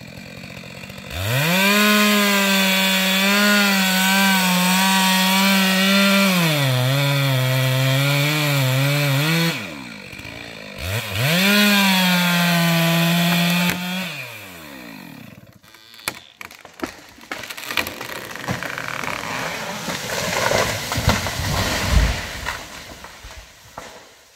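Two-stroke chainsaw revved to full throttle and cutting into a standing tree, its pitch dropping as the chain bogs down in the wood, easing off, revving and cutting again, then falling back to idle. After that the felled tree cracks and crashes down through the branches, with a heavy thud near the end as it hits the ground.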